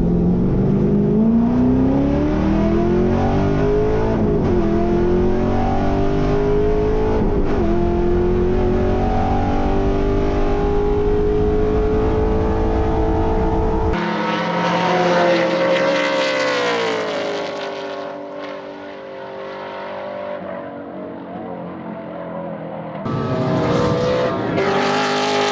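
Holden VX Commodore SS race car's L98 5.7-litre V8 accelerating hard, its pitch climbing with two upshifts, then rising and falling again as it is driven at speed. The exhaust has an angry tone.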